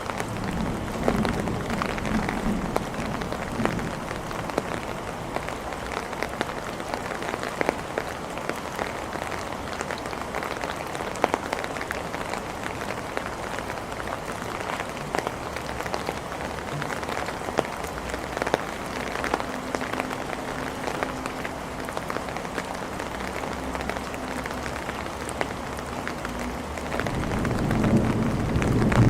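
Steady rain falling, with many small drop hits tapping throughout. A low rumble of thunder swells briefly about a second in and again near the end.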